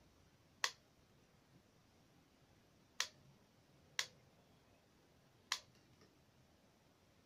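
Hot glue gun's trigger clicking as it is squeezed to feed glue: four sharp, isolated clicks, irregularly spaced a second or more apart, over a quiet room.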